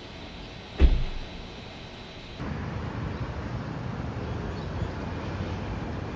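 A single heavy thump about a second in, then, from a little past two seconds, a steady low rumbling noise like a vehicle running.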